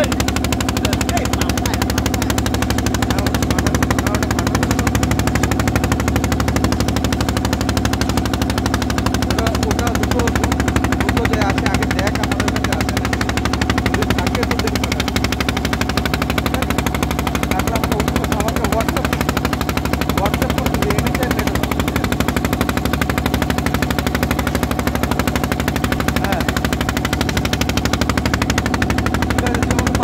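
Diesel engine of a wooden river motor boat (bhutbhuti) running steadily at cruising speed, a loud rapid even chug that does not change.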